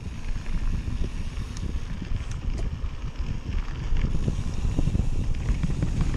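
Mountain bike riding fast over a dirt singletrack: a steady, choppy low rumble of tyres and bike rattling over the rough trail, with wind buffeting the microphone and a few sharp clicks.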